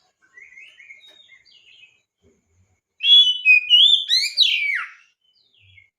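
Oriental magpie-robin (kacer) singing: soft chirping phrases, then about three seconds in a loud two-second phrase of whistled notes and quick downward-sweeping notes.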